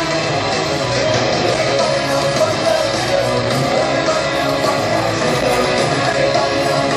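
Punk rock band playing live on a festival stage, electric guitars strumming over drums, heard from out in the crowd through the PA.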